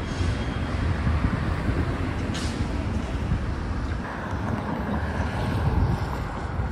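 City street ambience: passing traffic with wind buffeting the microphone, a steady low rumble under a noisy hiss, and one short click about two and a half seconds in.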